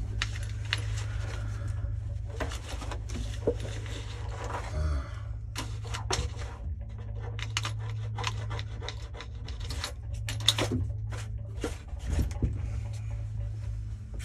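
A rag rubbing and wiping over the outside of a hot water heater, with scattered small clicks and knocks from handling. A steady low hum runs underneath.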